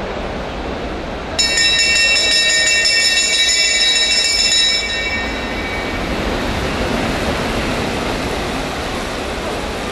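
Velodrome lap bell ringing, starting abruptly about a second in and holding a bright, many-toned ring for about three and a half seconds before fading: the signal for the coming sprint lap of the points race. It rings over the steady noise of the velodrome hall as the bunch of track bikes passes.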